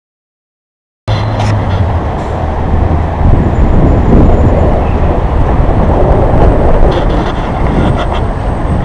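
Silence for about a second, then loud, gusting wind noise buffeting a handheld camera's microphone, with a heavy low rumble.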